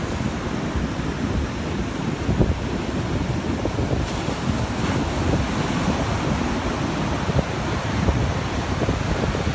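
Ocean surf breaking and washing up a sandy beach, a steady rushing wash, with wind buffeting the phone's microphone.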